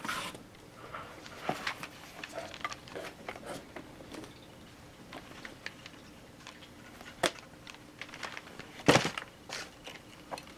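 A paper-wrapped box being lifted out of a cardboard shipping carton and turned over in the hands: scattered light rustles, taps and scrapes of paper and cardboard. There is a sharp tick about seven seconds in and a louder rustle about nine seconds in.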